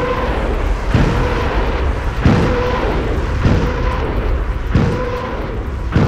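German Nebelwerfer rocket launcher firing a salvo: a series of about five launch blasts roughly a second apart, with a loud, shrill howling tone from the rockets that comes and goes.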